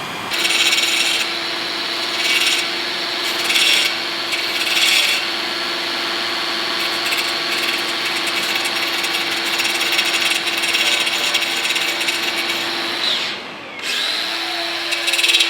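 Handheld power cutter, most likely an angle grinder, running at full speed and cutting into stone, with its blade biting harder four times in the first five seconds. About 13 seconds in it briefly spins down, then winds back up and cuts again.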